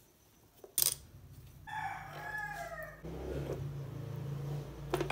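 A sharp metal click about a second in as the stator of an electric fan's motor is worked loose from its housing, with a couple more clicks near the end. Behind it, a pitched animal call with falling notes lasting about a second, over a low steady hum.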